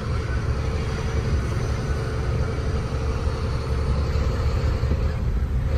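Truck engine running and road rumble heard inside the driver's cab while driving slowly: a steady low drone with a faint steady hum above it.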